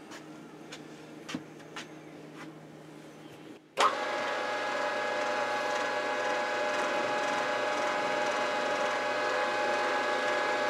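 Milling machine spindle motor switched on with a sharp click about four seconds in, then running steadily with a whine of several steady tones.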